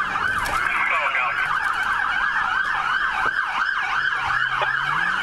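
Police car siren on a fast yelp, sweeping up and down about three times a second, heard from inside the patrol car's cabin. Near the end, the car's engine revs up as it accelerates.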